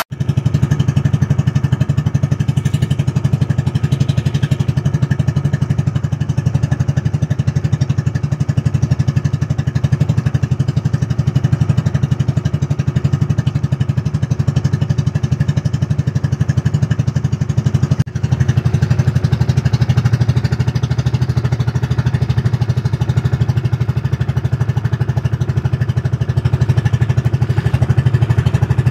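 A small outrigger boat's engine running steadily under way, a loud, even drone with a momentary dropout about eighteen seconds in.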